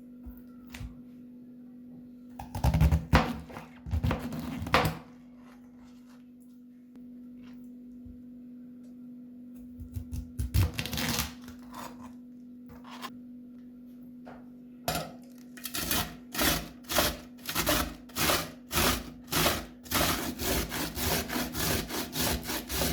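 Raw vegetables being shredded by hand, cut or grated, in a run of short rasping strokes. There are a couple of brief flurries early on, then a steady rhythm of about two strokes a second that quickens near the end, over a low steady hum.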